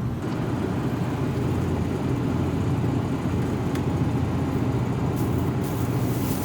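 Exhaust fan running with a steady low hum and rush.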